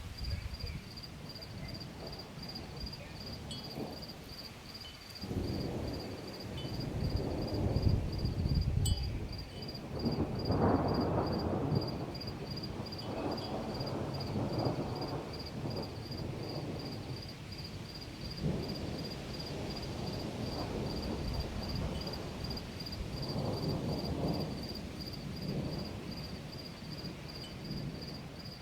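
Low rolling rumbles of distant thunder swell and fade several times, the loudest about a third of the way in. Under them a cricket chirps steadily, several high chirps a second.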